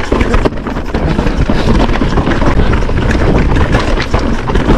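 Wind buffeting the microphone over the rattle of a Marin E2 electric mountain bike riding down rough, rocky singletrack, with tyres rolling on dirt and stones and frequent short knocks and clatters.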